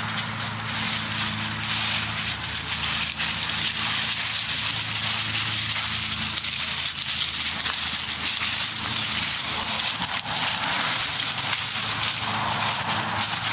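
Dry fallen leaves rustling and crackling underfoot with many small crunches, over a steady hiss and low hum of recording noise.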